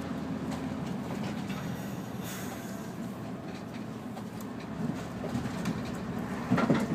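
Mercedes V8 diesel of a Neoplan N116 Cityliner coach running steadily under way, heard from the driver's seat inside the cabin: a low engine drone with road noise, growing a little louder near the end.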